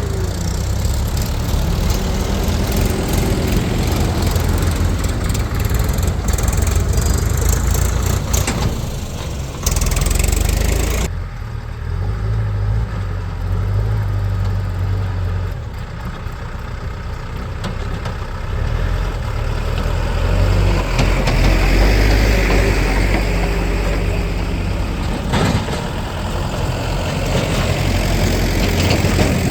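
Heavy diesel machine engine running steadily with a deep rumble; the sound changes abruptly about eleven seconds in.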